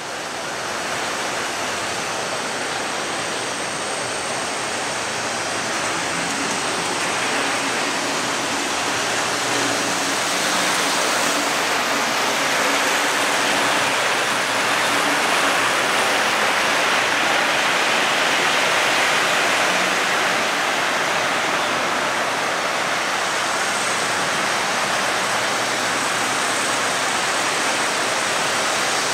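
Model trains running on the layout's track: a steady whirring rumble of wheels and motors that grows a little louder in the middle and then eases.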